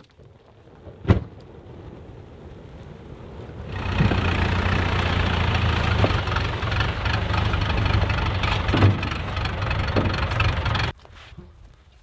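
Farm tractor's engine running, growing louder over the first few seconds, then loud and steady as the front-loader tractor drives close by, before cutting off suddenly near the end. A single sharp knock about a second in.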